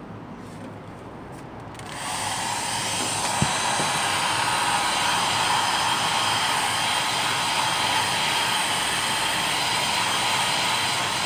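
Hair dryer switched on about two seconds in, then running steadily with an even blowing noise; one short click a little later.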